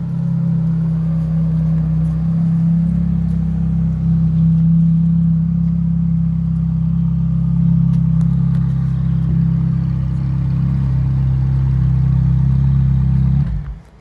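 Ferrari F430 Scuderia's V8 engine idling steadily at low revs, with no revving. It stops abruptly near the end.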